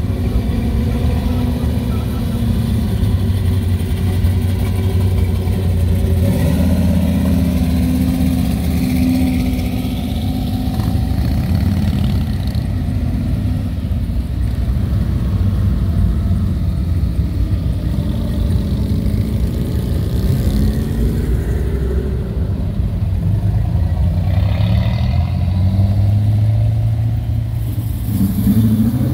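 Classic muscle cars and Harley-Davidson V-twin touring motorcycles driving slowly past one after another, their engines running at low speed and revving as they pull away, with a rising rev near the end.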